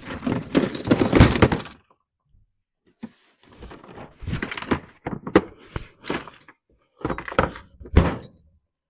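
Heavy steel rolling tool chest being tipped over, with thunks and rattling from the cabinet and its contents in three bouts of a second or two each.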